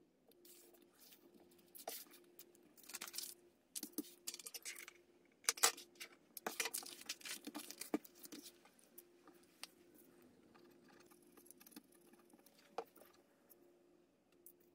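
Paper rustling and crinkling as book pages and kraft paper are handled, with light taps and rubs on a tabletop. The rustles come in quick clusters in the first half and thin out near the end.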